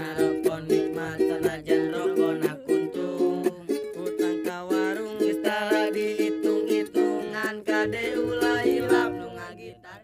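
A ukulele strummed in a quick, steady rhythm, with a young man singing along; the music dies away near the end.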